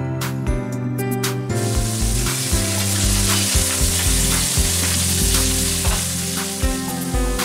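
Scampi, mussels and clams tipped into hot oil in a stainless steel frying pan, setting off a loud, sudden sizzle about a second and a half in that keeps on frying steadily: the shellfish searing at the start of a seafood buzara. Soft guitar music plays underneath.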